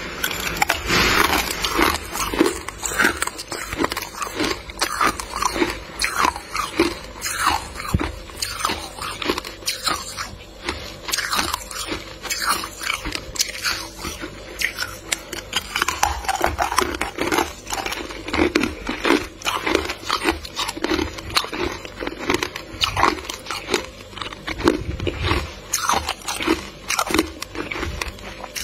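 Freezer frost being bitten and chewed close to the microphone: a steady, irregular run of crunches.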